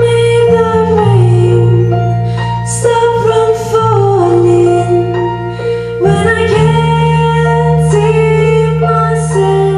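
A woman singing a melody into a microphone, accompanied live by piano, bass and cello. Long held low notes sit under the voice and shift to a new chord about six seconds in.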